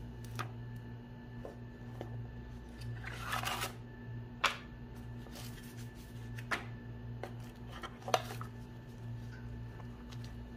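Handling of a phone's cardboard box and paper packaging: a brief rustle about three seconds in and several sharp clicks and taps as pieces are set down and the accessory box is opened, over a low steady hum.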